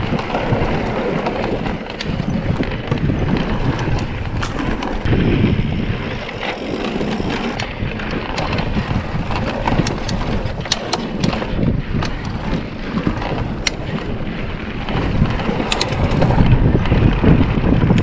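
Mountain bike ridden over a wooden slatted boardwalk, with wind buffeting the microphone. The tyres rumble over the boards, and sharp clicks and rattles come from the bike, most often in the second half.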